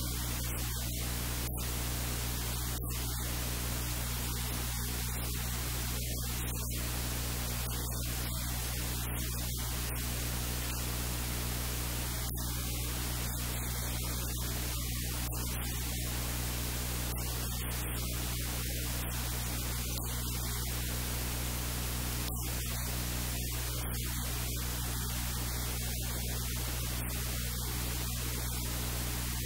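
Steady hiss with a low electrical hum of several steady tones. No knife strokes or other events stand out.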